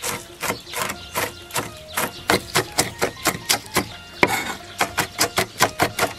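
Chinese cleaver chopping fried dried chilies and Sichuan peppercorns finely on a thick round wooden chopping block: a run of sharp knocks, about three to four a second, quickening a little in the second half.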